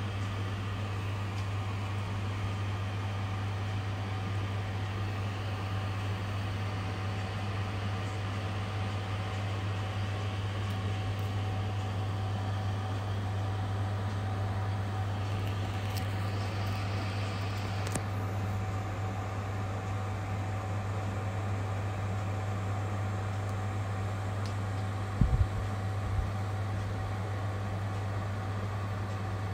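Steady low mechanical hum with a faint steady higher tone over it. Two brief low thumps come near the end.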